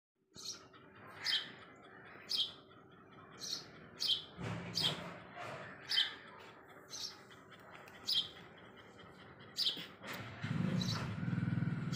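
Young chicken chicks peeping, short high calls about once a second. A steady low hum comes in near the end.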